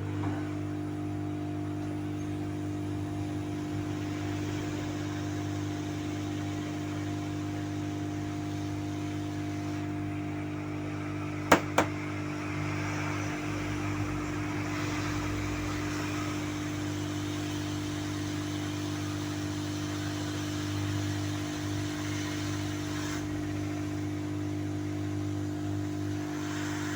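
Steady whirring hum of a hot air rework station's blower while a MOSFET is reflowed onto a laptop motherboard. Two sharp clicks come about eleven and a half seconds in and are the loudest sounds.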